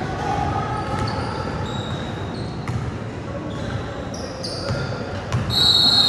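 Basketball being dribbled on a gym floor during play, with short high sneaker squeaks and a louder, longer squeal near the end.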